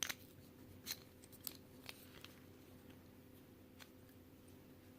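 Faint, scattered clicks and taps of the plastic pieces of a Qiyi stickerless Square-1 puzzle being handled and fitted back together, about half a dozen in all, over a steady low hum.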